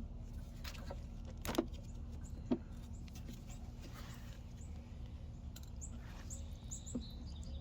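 A few light clicks and knocks from handling parts: two about one and a half and two and a half seconds in, and a smaller one near the end. Under them runs a steady low hum, and birds chirp briefly near the end.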